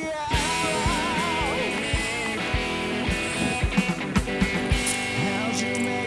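Rock background music: a wavering, bending lead line over guitar, with a steady beat of low thumps that come more densely around the middle.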